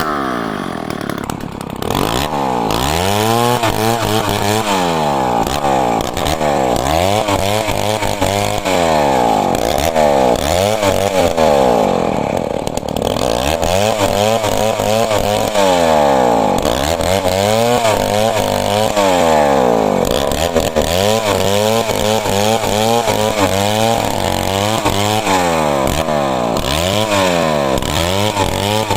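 Chainsaw cutting lumber, its engine revving up and dropping back again and again, about every two seconds.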